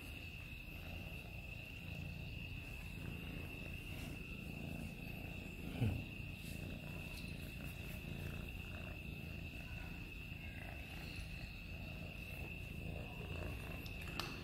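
An orange-and-white street cat purring loudly while being stroked: a steady, rhythmic low rumble that is really loud. A constant high-pitched tone runs behind it, and there is a short thump about six seconds in.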